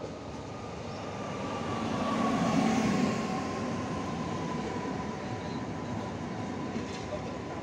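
Newag Impuls ED78 electric multiple unit pulling into the station. Its running noise and wheel rumble are loudest about two to three seconds in as it passes close, over a steady whine that slowly falls in pitch as the train slows.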